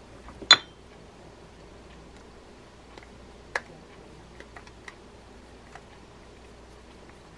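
Sharp metallic clink about half a second in, then a few softer clicks and ticks as a screwdriver works a small case screw on an Olympic Penguin 105A spinning reel.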